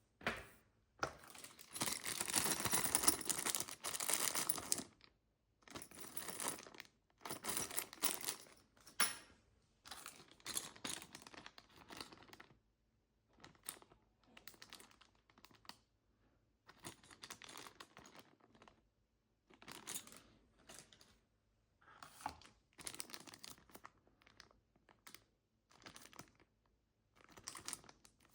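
Packaging being handled and unwrapped, with crinkling, rustling and tearing in irregular bursts. The longest and loudest burst comes about a second in and lasts some four seconds, followed by shorter bursts and brief pauses.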